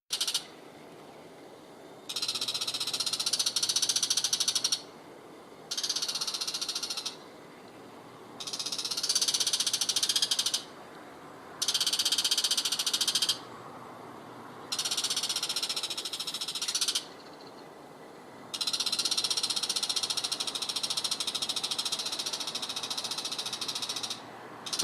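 Bull-headed shrike giving its harsh, noisy chattering call: bouts of very rapid rattling notes, each lasting one to a few seconds, with short pauses between. The longest bout runs about six seconds, in the second half.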